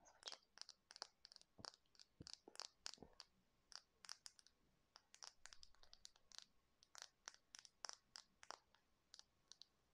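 Fingernails tapping and scratching on the plastic handle of a pink makeup brush, an irregular run of many crisp little clicks and scrapes for ASMR.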